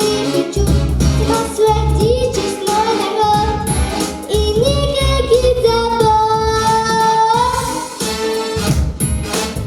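A young girl singing a pop song over a backing track with a steady bass beat, holding long notes about halfway through.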